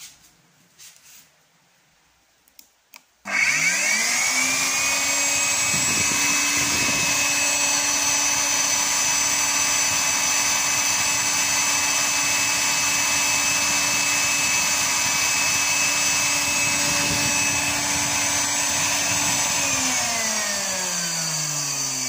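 Samsung VC6015V vacuum cleaner's 1500-watt motor test-run with its housing open: a few small clicks, then about three seconds in the motor starts suddenly, rises to speed within about a second and runs steadily with a high whine. Near the end its pitch falls as it is switched off and slows down.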